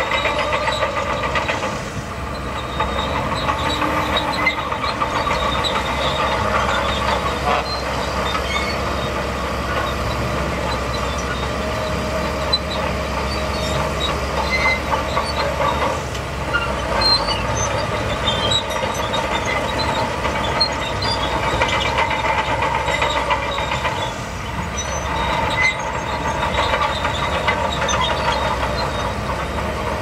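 Shantui DH17C2 crawler bulldozer working: its diesel engine runs steadily under load and its steel tracks clatter as it pushes sand.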